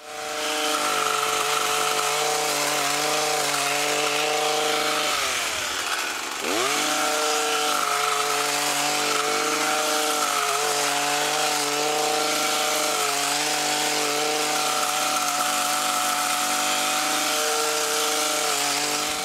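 Handheld petrol hedge trimmer's small engine running steadily at high revs; about five seconds in the revs drop sharply and climb back up as the throttle is let off and opened again. The sound cuts off suddenly at the end.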